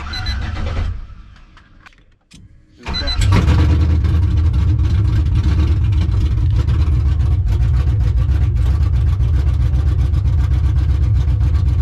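LS-swapped 1995 Chevy pickup's V8 cranked briefly once, then cranked again about three seconds in and catches, running steadily and loud on the freshly fitted battery, with no exhaust system on it yet.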